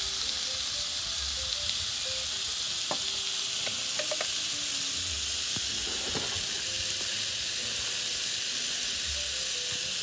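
Chicken pieces sizzling on a cast-iron grill plate over a gas camp stove: a steady frying hiss, with a few light clicks.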